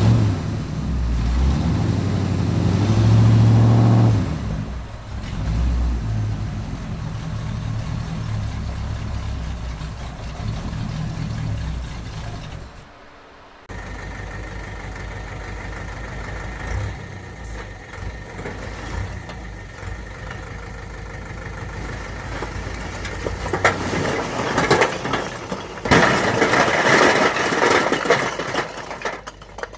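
Heavy-vehicle engine sounds: an engine starting and revving up over the first few seconds, then running steadily. The sound drops out briefly about halfway through and comes back with a different, steadier tone, with rougher noisy spells near the end.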